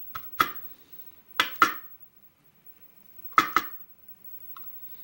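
Small steel lock pins and springs clinking against metal as they are handled: a few short, sharp clinks, some in quick pairs, with fainter ticks near the end.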